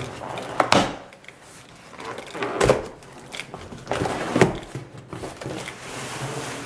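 Cardboard box and its paper packaging being pulled and torn open by hand, rustling and crackling, with a few louder rips spread through.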